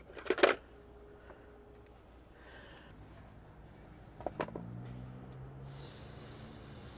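Handling sounds of a key and metal locksmith tools: a short clatter near the start and a couple of sharp clicks about four seconds in, over a faint low hum.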